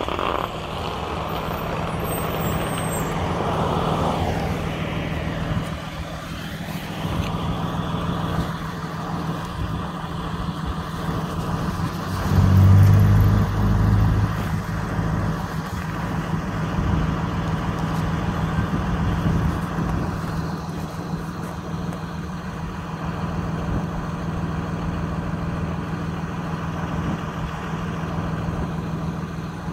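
Yellow school bus engine running at the curb, a steady low drone, with a louder surge about halfway through.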